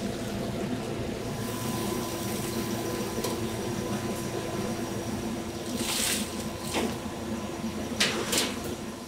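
Steady hum of workshop machinery with a constant hiss. Over it, deep-fried tofu pieces are tipped out of a stainless colander into a plastic crate: short rustling tumbles about six seconds in and two louder ones about eight seconds in.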